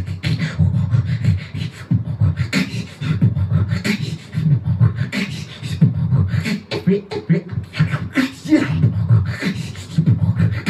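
Human beatboxing into a handheld microphone: a dense, stuttering bass line with sharp snare- and hi-hat-like clicks over it, and short pitched vocal sounds joining in during the second half.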